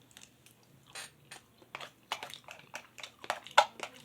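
A person chewing a mouthful of spicy chicken noodles close to the microphone: irregular wet smacks and clicks of the mouth, getting busier and louder in the second half.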